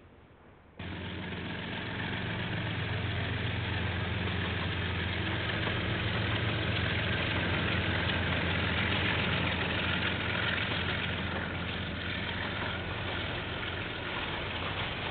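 Diesel locomotive engine running steadily as a train passes, a low engine note under a dense rumble. It starts abruptly about a second in, swells slightly toward the middle and eases a little near the end.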